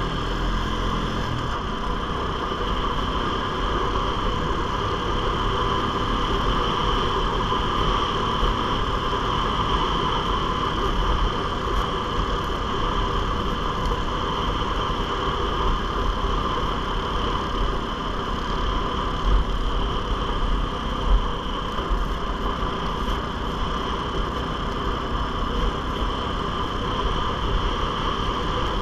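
ATV engine and drivetrain running at a steady cruising speed, with a steady high-pitched whine over the engine's rumble.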